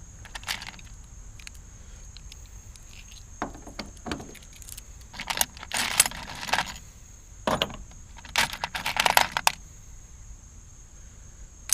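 Small metal parts clinking and jangling in irregular handfuls as they are picked through and dropped into a bin, in several short clattering bursts.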